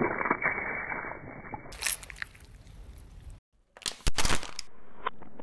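Car tyre rolling slowly over ripe tomatoes and squashing them, a wet squelching and splattering that is loudest at the start and fades. After a brief dropout, a short burst of sharp crackling about four seconds in as the tyre presses onto small plastic toy pots.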